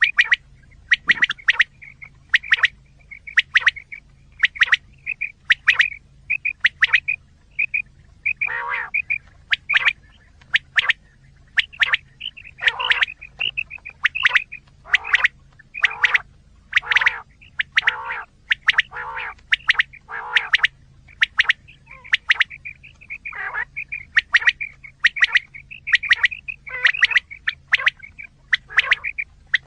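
Quail calling: short, clipped calls repeated in quick groups, with longer, lower, rougher calls mixed in through the middle. A recording of the kind played to lure quail for hunting.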